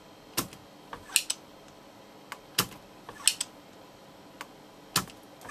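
Small sharp clicks and taps of a soldering iron and circuit board being handled during desoldering, about five clear ticks with a few fainter ones between, at irregular intervals.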